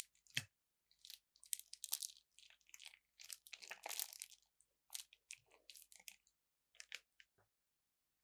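Thin plastic piping bag crinkling and rustling in irregular crackles as it is squeezed and wrung out by hand, densest in the middle, with a light tap near the start.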